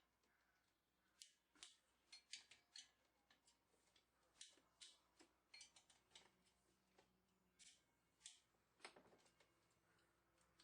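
Near silence with faint, irregular small clicks and ticks scattered throughout.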